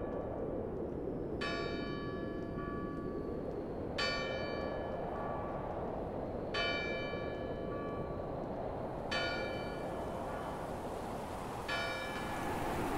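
A single large bell tolling slowly, five strikes about two and a half seconds apart, each left to ring on and fade. Under it runs a steady rushing noise that grows louder and hissier near the end.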